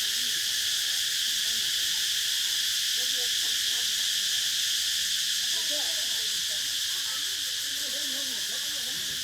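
Cicadas calling in a continuous, steady high-pitched drone.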